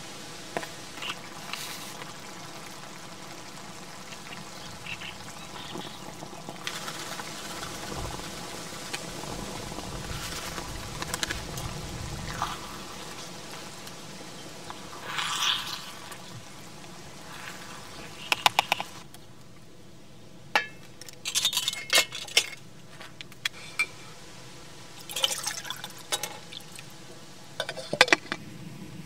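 Diced vegetables sizzling in a steel camping pan on a gas burner, with a spatula stirring and scraping. In the second half there are clusters of sharp metal clinks from the cookware.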